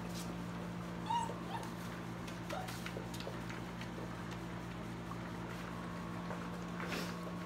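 Puppies giving a few brief, high whimpers and squeaks, about a second in, around two and a half seconds in and near the end, over a steady low hum.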